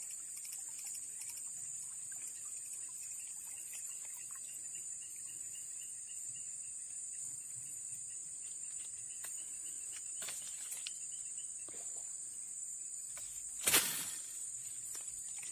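Steady, high-pitched buzzing of insects from the swamp vegetation, with a short, louder burst of noise near the end.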